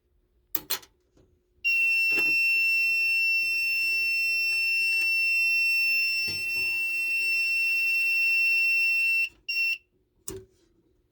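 An MS-2 fire alarm control panel's trouble sounder giving one steady high-pitched beep for about eight seconds, then chirping once briefly, the panel signalling its NAC fault and system trouble. Two sharp clicks come just before the tone and one just after it.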